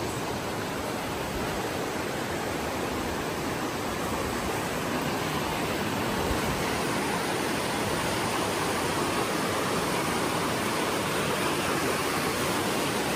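Fast mountain creek rushing over rapids just below a footbridge: a steady, dense wash of white-water noise, a little louder from about five seconds in.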